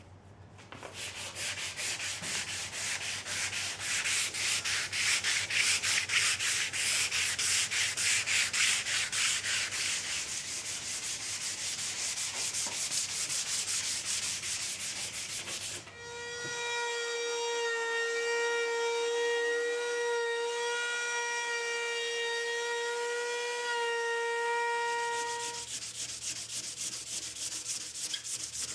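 Sandpaper rubbed by hand over a wooden tabletop in quick back-and-forth strokes. In the middle, for about nine seconds, the strokes give way to a steady high tone with overtones, before the sanding resumes near the end.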